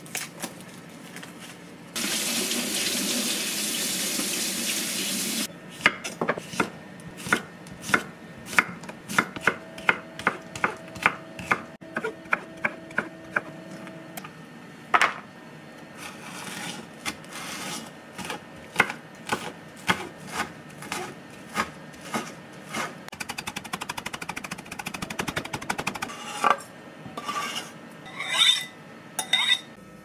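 Kitchen knife chopping vegetables on a wooden cutting board: sharp, even knocks about two a second, getting faster later on. It opens with about three seconds of steady rushing noise, and near the end the chopped food is scraped off the board into a glass bowl with a few brief ringing taps.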